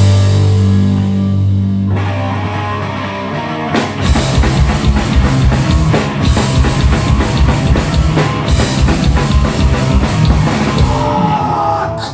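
Hardcore band playing live, with distorted guitars, bass and drum kit. A low chord rings out, then about four seconds in the drums and guitars kick into a fast, driving riff. The song stops abruptly near the end.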